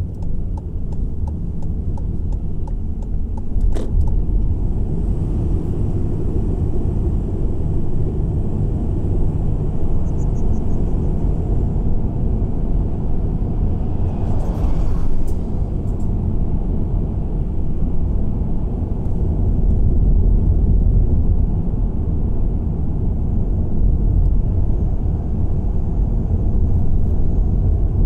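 Steady low rumble of a car's road and engine noise while driving. About halfway through there is a brief rushing swell.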